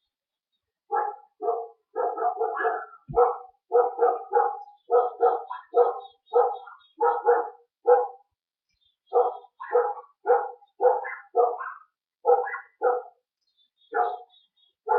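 A dog barking over and over, about two barks a second, with a short pause a little past the middle.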